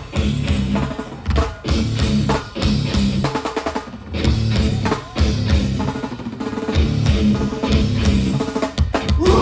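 Hardcore punk band playing live without vocals: fast, hard-hit drums with distorted guitar and bass.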